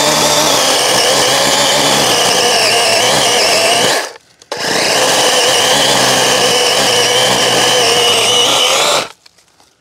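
DeWalt 20V MAX XR 12-inch cordless electric chainsaw running at full speed with its bar down in a small stump. It runs for about four seconds, stops briefly, then runs again for about four more seconds before cutting off near the end.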